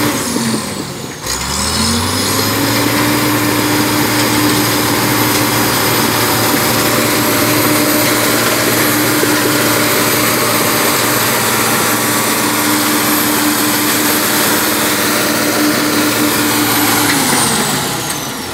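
International TD15C crawler dozer's diesel engine running. The revs drop about a second in, climb back up and hold steady at high speed, then fall away again near the end.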